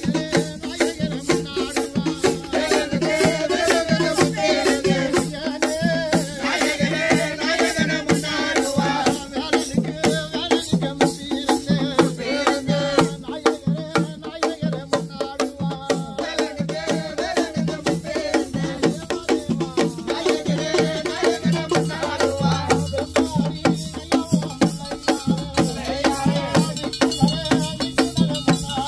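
Music with a fast, steady beat of shaken percussion under a wavering melody.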